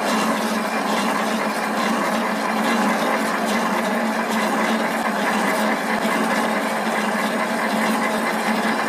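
Centre lathe running steadily, its chuck turning a workpiece during external thread cutting: an even mechanical hum with a constant low tone.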